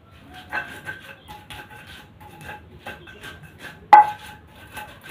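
Pestle grinding and pounding garlic and spices in a cobek (mortar), giving irregular scraping knocks, with one sharp loud knock about four seconds in.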